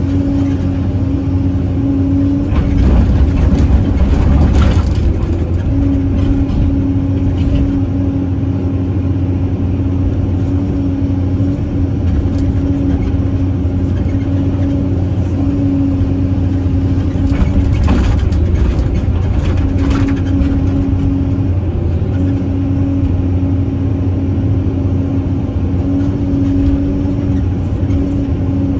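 Caterpillar 320C excavator's six-cylinder diesel engine running under load, heard from inside the cab, with a steady low hum and a higher tone that drops out and comes back as the machine digs, swings and dumps. It grows louder for a couple of seconds about three seconds in.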